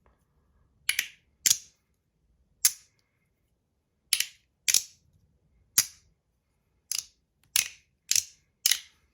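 A handheld fidget slider with plastic ball detents is being snapped shut and clicked by hand. It gives about ten sharp, crisp clicks at an uneven pace of half a second to a second apart.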